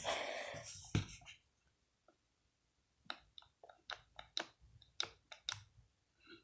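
A short hiss and a knock, then scattered faint clicks and taps from plastic bottles and containers being handled while slime ingredients are mixed.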